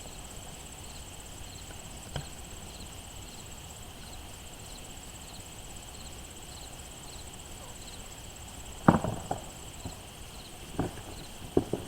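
Knocks and thuds of a digging tool working the soil: one faint knock early, a loud cluster about nine seconds in, and a few more near the end. Behind them, steady insect buzzing with a regular chirp about twice a second.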